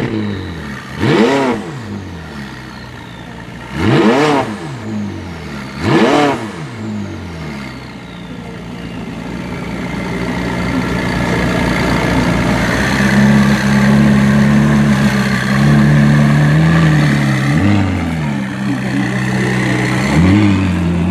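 McLaren 675LT's 3.8-litre twin-turbo V8, stationary, blipped three times in quick succession in the first six seconds, each rev rising sharply and dropping back to idle. It then idles steadily, louder from about halfway, with two smaller blips near the end.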